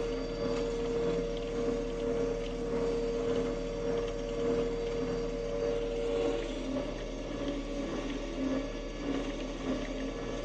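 Combine harvester running steadily: a mechanical drone with a pulsing low hum, and a steady higher hum that stops about six seconds in.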